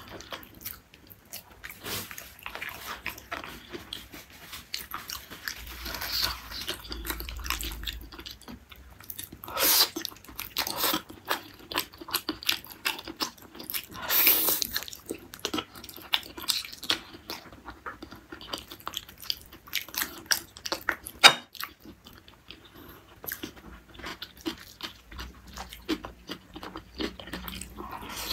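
Close-miked mouth sounds of a person biting and chewing gulai tunjang, beef tendon curry: a run of short, sharp, wet clicks and smacks. There are louder bites around 10 and 14 seconds in and a single sharp click about two-thirds through.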